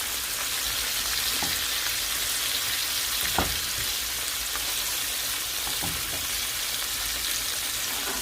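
Flour-dredged chicken pieces deep-frying in a pot of hot oil: a steady sizzle with a few faint pops and a brief knock about three and a half seconds in.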